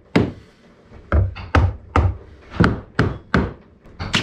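Hammer blows on wood, an uneven run of about eight sharp knocks, driving a steamed yellow cedar wedge down into place between a frame and the hull planking.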